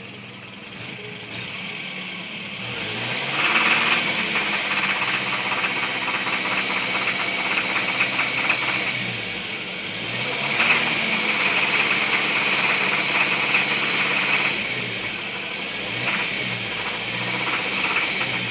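Toyota 22RE four-cylinder engine running and revved up and back down about three times, with a rapid knocking running through it, an unexplained knock that the owner is asking about.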